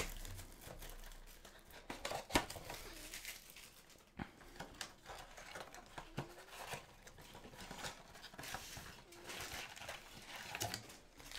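A blaster box of basketball trading cards being opened: plastic wrap crinkling and cardboard tearing, with scattered clicks and rustles as the packs are taken out.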